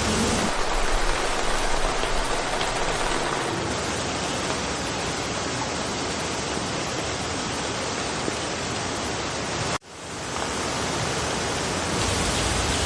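Steady rain falling through a forest, an even hiss without distinct drops. Near the end it cuts out abruptly for a split second and fades back in.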